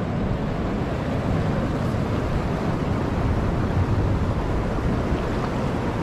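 River water rushing fast over a check dam and between rocks, a steady unbroken noise, with wind buffeting the microphone in a low unsteady rumble.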